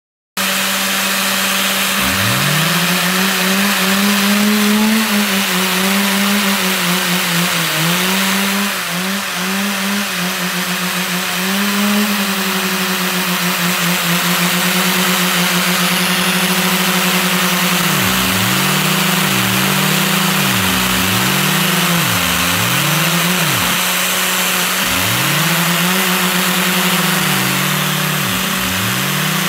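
LEGO double-blade vacuum turbine spinning at high rpm: a steady, drone-like whir with a loud hiss of rushing air.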